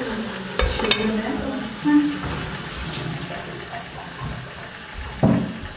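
Aluminium lid set down on a large pot of osh, clanking against the rim about half a second in. A dull thump follows near the end.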